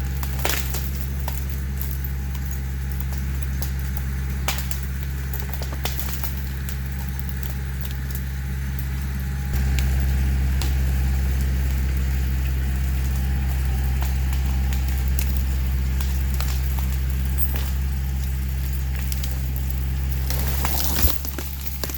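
Kioti DK45 tractor's diesel engine running steadily, getting louder about halfway through, with scattered faint crackles and a sharp knock near the end.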